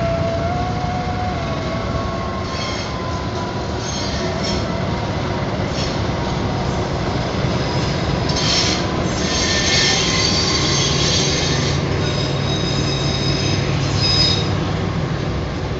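A passenger train hauled by two diesel-electric locomotives passing close by, a steady low engine and rail rumble throughout. Its wheels give high squeals on the rails in several stretches, strongest over the second half as the locomotives and then the coaches go by.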